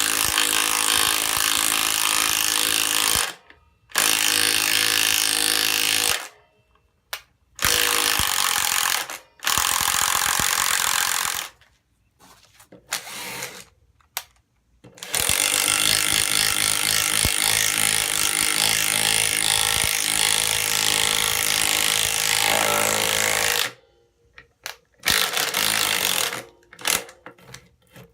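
Ridgid R8224 12-volt palm impact driver impacting as it drives screws, in several runs of a few seconds each with short pauses between, the longest lasting about eight seconds, then a few short bursts near the end.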